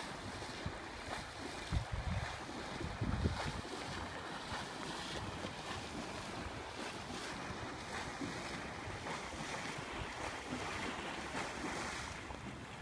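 Wind buffeting the microphone, in low gusts during the first few seconds, over a steady wash of splashing water from a swimmer doing butterfly.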